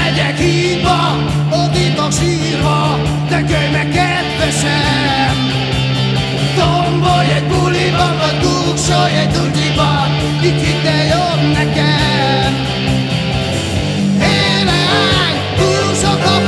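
Rock band music: guitar over sustained bass notes and a steady drum beat.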